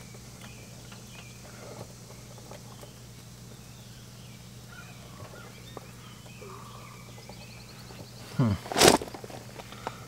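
Outdoor ambience: a steady low hum with faint bird chirps and small handling clicks, then a louder knock and rustle of movement near the end.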